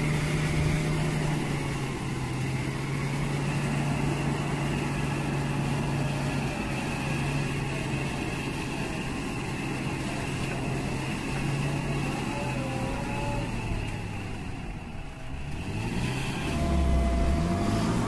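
JCB 3DX backhoe loader's diesel engine running steadily while the backhoe arm works. About fifteen seconds in the engine note drops briefly, then climbs again.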